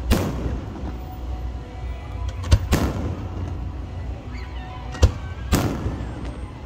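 Fireworks bursting: three sharp booms about two and a half seconds apart, each trailed by a short hiss, with music playing underneath.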